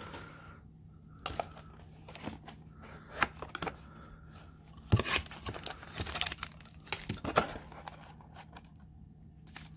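Hands handling a cardboard trading card box and foil card packs: scattered rustles, light taps and crinkling tears, with sharper snaps about five and seven seconds in.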